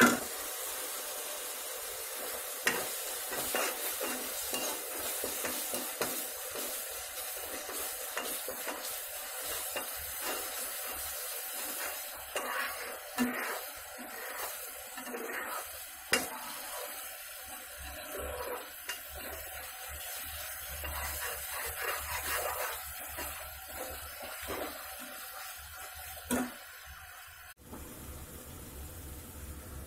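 Chopped tomatoes sizzling in oil in a steel kadai while a steel spoon stirs and scrapes them, with scattered clinks of metal on the pan. Near the end the sizzle drops away sharply.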